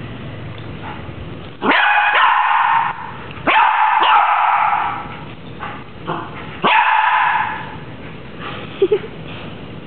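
Small dog barking in three loud bursts of about a second each, with a short high squeak near the end.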